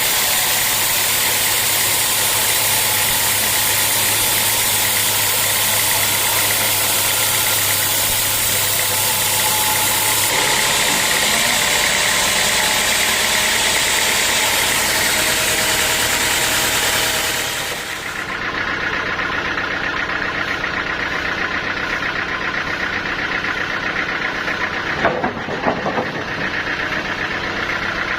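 Sawmill machinery running steadily. The sound changes abruptly about eighteen seconds in, and a few short knocks come near the end.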